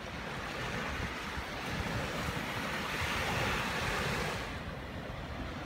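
Surf washing on a beach, with wind rumbling on the microphone; the wash swells a little around the middle.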